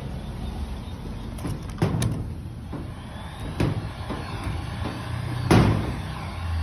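Electric heat gun running with a steady low whir, blowing hot air to shrink clear plastic film around a dog chew bone. Three short knocks come through, about two, three and a half and five and a half seconds in, the last the loudest.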